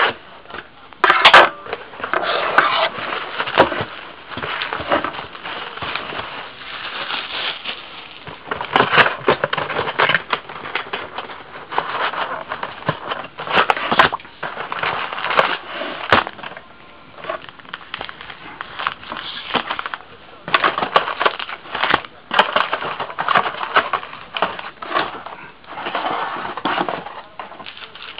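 Plastic wrapping crinkling and tearing, with sharp crackles and clicks, as a box of trading card packs is unwrapped and opened.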